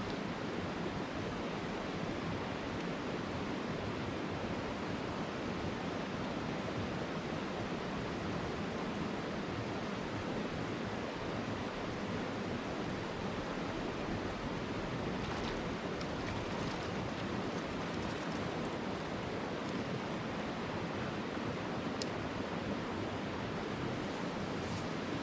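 Steady rush of a mountain stream's flowing water, with a few faint clicks in the second half.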